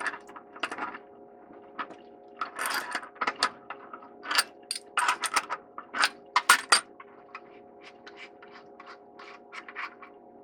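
Metal wrenches and threaded pipe fittings clinking and scraping against each other as a water heater's supply-line fittings are loosened, in irregular clusters that are densest in the middle and thin out near the end, over a steady hum.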